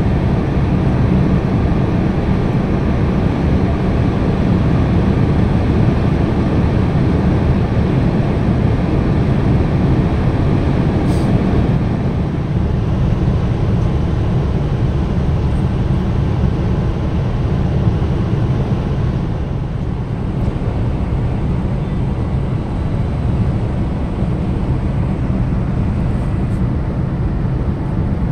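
A car driving at motorway speed, heard from inside the cabin: steady tyre and wind noise with a low rumble, easing slightly about two-thirds of the way through.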